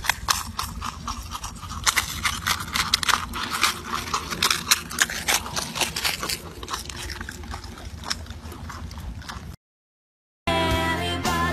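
Marmots crunching and gnawing a carrot close to the microphone: a quick, irregular run of crisp bites and chews that stops abruptly near the end.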